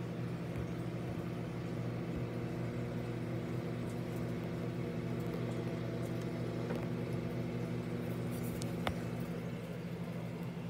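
Steady electrical hum of a running kitchen appliance, with a faint click about nine seconds in.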